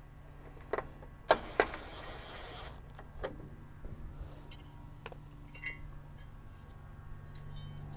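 Hand work on a washer's cabinet and its fasteners: scattered sharp clicks and knocks, the loudest pair about a second and a half in, followed by about a second of scraping, then lighter ticks and taps.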